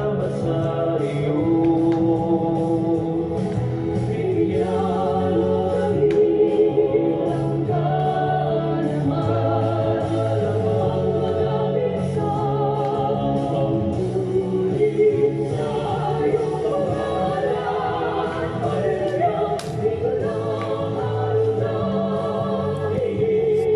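Background music: a choir singing a slow gospel-style hymn, several voices holding long notes.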